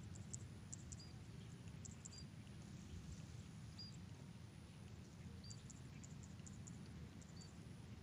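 Faint marsh ambience: a steady low rumble with short, high chirps every second or two and scattered soft high ticking from small creatures in the reeds.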